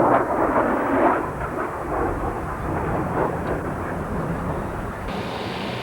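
Radio-controlled model cars racing, their small motors buzzing with a fluctuating, aircraft-like whine. The sound changes abruptly about five seconds in.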